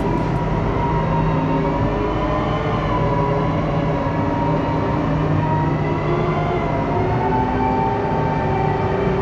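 Tractor engine running steadily at idle, its pitch wavering slightly.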